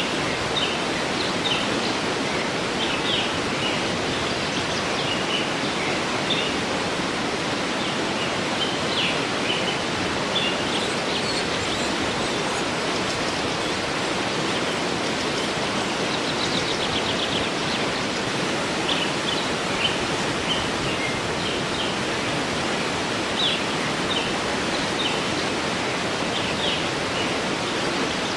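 Steady rush of a waterfall, with small birds chirping on and off over it in short high calls and one quick trill about halfway through.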